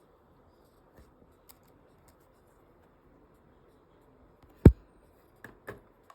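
A few faint clicks, then one loud, sharp knock a little past the middle, followed by two softer knocks near the end.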